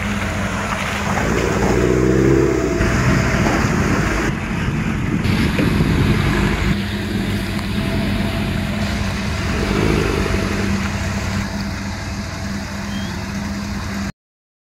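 Jeep CJ engine running as it drives up a shallow stream, with a steady wash of water around the tyres; the revs rise briefly about two seconds in and again about ten seconds in. The sound cuts off abruptly just before the end.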